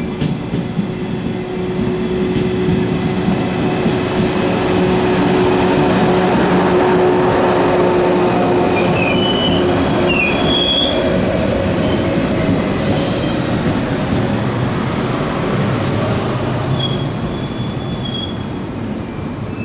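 A JR 113 series electric train pulling into the station close by: a steady rumble of wheels on rail, loudest about six to eight seconds in and easing off near the end. Short high squeals come as it brakes in the second half, with two brief hisses.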